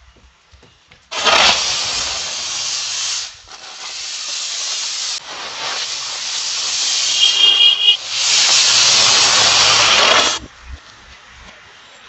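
A spinning 'helicopter' firecracker catches about a second in and burns with a loud, steady hiss for about nine seconds. The hiss dips and surges a few times, a brief high whistle comes about two-thirds of the way through, and the hiss then cuts off suddenly as the charge burns out.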